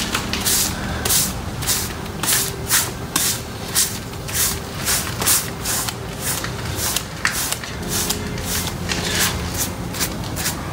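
Stiff paintbrush scrubbing paint onto a rough cast-cement leaf, a scratchy swish with each stroke at about two strokes a second.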